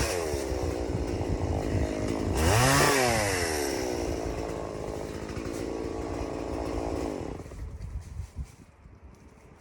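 Stihl MS 170 two-stroke chainsaw revved briefly twice, then idling. Its engine cuts off about seven seconds in.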